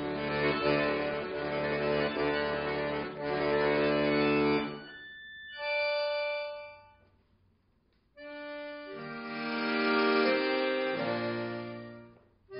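Chromatic button accordion playing solo classical music: full sustained chords with bass for the first four and a half seconds, then a brief high chord and a pause of about a second. Soft chords then swell up and fade away again, with low bass notes coming in under them.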